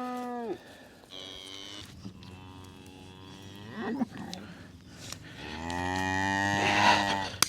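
Cattle mooing: a long call that ends about half a second in, two quieter calls, then the loudest, lower call near the end.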